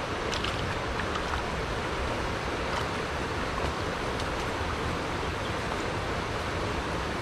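Steady rushing noise of a flowing river, with a few faint clicks as the cast net and fish are handled.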